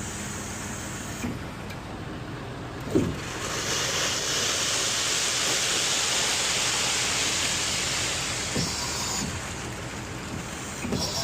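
Concrete mixer truck running, with a steady rushing hiss that swells about three and a half seconds in, and a single knock just before that.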